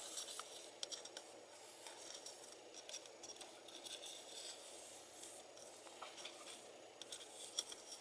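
Faint scratching and rubbing of a hot soldering tip worked around in solder and flux in the grooves of a metal can lid, with a few small clicks. The tip is being tinned.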